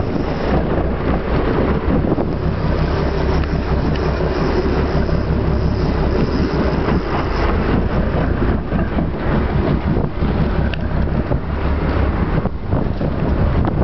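A boat's engine running steadily, with wind buffeting the microphone and water rushing past the hull.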